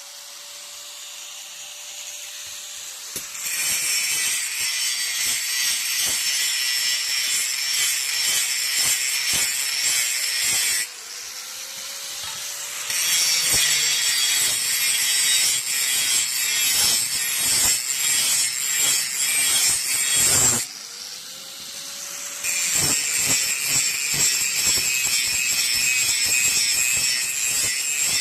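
Steel knife blade being sharpened: a harsh, hissing scrape of metal on an abrasive, with many small clicks. It breaks off twice, briefly, and a faint hum sounds in each pause.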